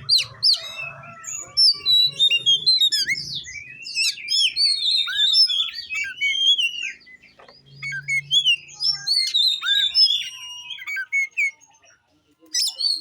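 Oriental magpie-robin (kacer) singing a long, rapid, varied run of whistles and chirps, many notes sweeping up or down in quick succession, with a short break near the end.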